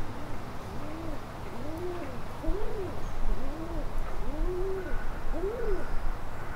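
A series of short animal calls, about eight, each a smooth tone that rises and falls in pitch over roughly half a second, some overlapping one another.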